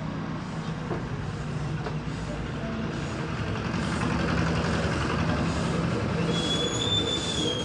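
Rumbling noise of a road vehicle passing, swelling about halfway through, with a high, steady squeal that starts near the end.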